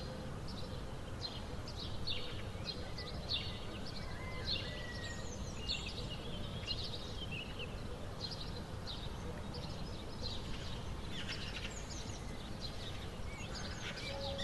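Outdoor ambience: birds chirping repeatedly with short, high calls, over a low steady rumble of background noise.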